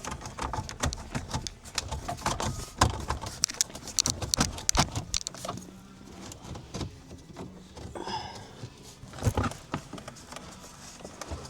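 Plastic dashboard trim pieces being handled and pushed back into place: a run of sharp clicks, knocks and rattles, busiest in the first half.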